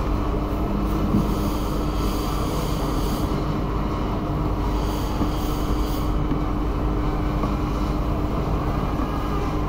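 Steady mechanical hum and hiss with a constant low tone running evenly throughout.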